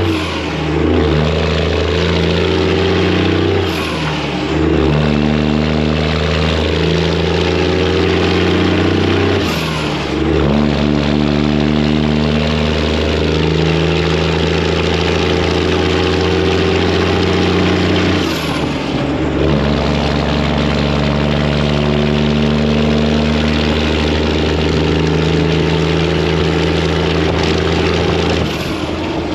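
Detroit diesel semi-truck engine running loud under load, its note breaking and settling at a new pitch four times as the driver shifts gears, at about 4, 9½, 18½ and 28½ seconds.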